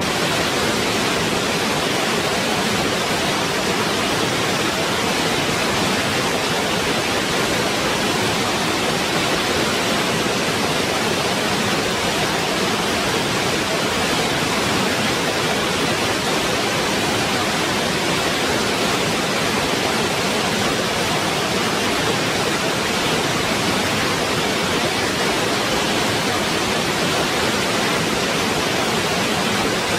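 Waterfall: water falling in a steady, even rush that does not change.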